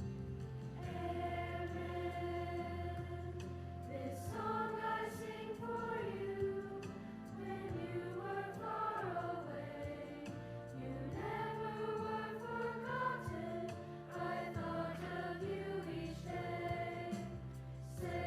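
A choir singing over an instrumental accompaniment, with long held bass notes under the sung melody.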